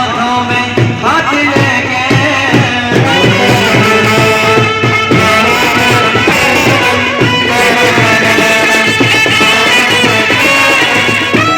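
Loud Indian band music: a held, gliding melody over a steady drum beat, in the style of a wedding brass band.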